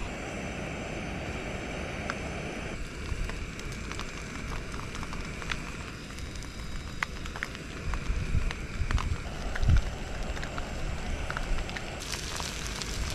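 Whitebait fritter frying in a pan on a portable gas stove: a steady sizzle with scattered small pops and crackles, and wind rumbling on the microphone. A sharper, brighter hiss comes in near the end.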